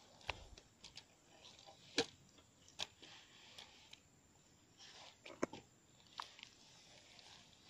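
Faint, scattered clicks and crackles, a few each second or so, from hands handling a spinning rod and reel among dry leaf litter.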